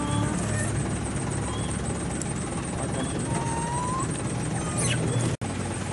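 Steady roadside traffic noise: a low engine hum over a constant rush, with a few faint short chirps. The sound cuts out for an instant near the end.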